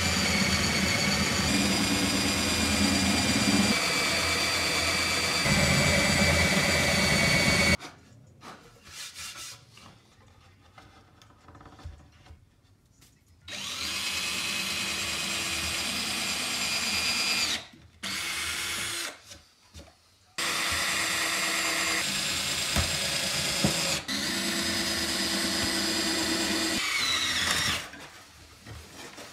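Cordless drill boring holes into a pine tabletop panel, running in four bursts with short pauses between, the first and last about seven seconds long. The motor's whine falls away as it winds down near the end.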